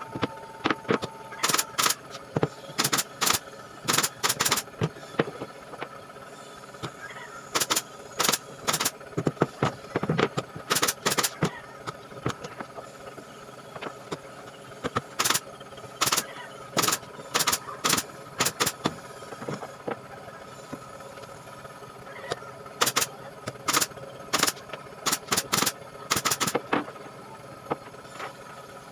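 Sharp knocks in quick clusters of two to four, coming every second or so with a few pauses: nailing into the slatted pine top of a wooden counter. A faint steady hum runs underneath.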